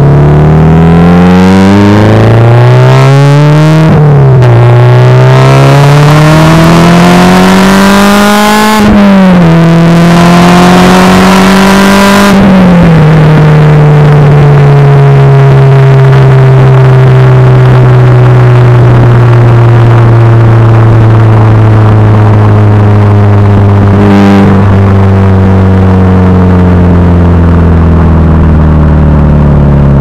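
Subaru Impreza STI's turbocharged boxer four through an A.R.T. titanium cat-back exhaust, pulling hard. The revs climb and drop sharply with an upshift about 4, 9 and 12 seconds in, then the car cruises with the revs easing slowly down. The exhaust is loud enough to distort the camera microphone.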